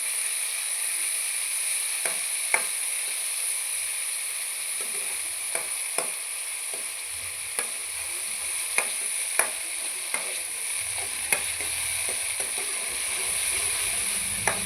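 Onion and ginger sizzling as they fry in hot ghee, with a spoon clicking against the pan now and then as they are stirred.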